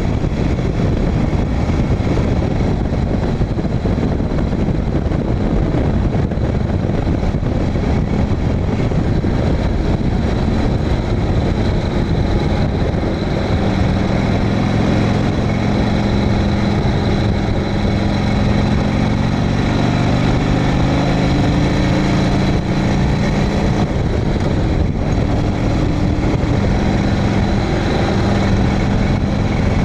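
Harley-Davidson Sportster 1000 Ironhead's air-cooled V-twin running at road speed, under a heavy rush of wind noise. About halfway through, the engine note stands out and climbs slowly.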